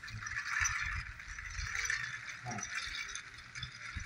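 Battery-operated toy train running steadily around its plastic track, with a continuous mechanical rattle from its motor and wheels.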